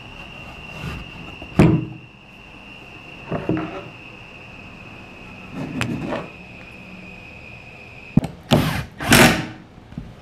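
Wooden parts of a pine can crusher knocking and clattering as it is handled and taken apart by hand: a few separate knocks, then a click and two louder scraping, sliding noises near the end. A faint steady high whine runs underneath until shortly before the end.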